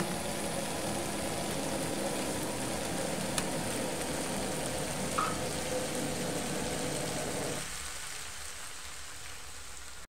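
Omena stew of small dried sardines with tomatoes and onions sizzling in a frying pan, a steady hiss. The lower part of the sound drops away about three-quarters of the way through, leaving a fainter sizzle.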